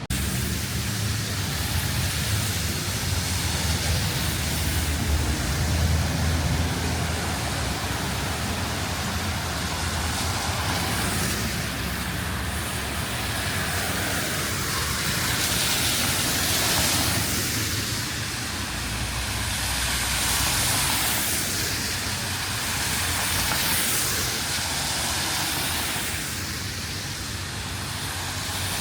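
Rain and traffic on a wet city street: a steady hiss of rain and wet tyres over a low engine rumble. The hiss swells several times as vehicles pass.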